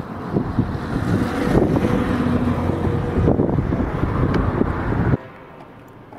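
Wind buffeting an outdoor microphone, a loud, rough rumble with uneven gusts. It cuts off abruptly about five seconds in, leaving a much quieter background.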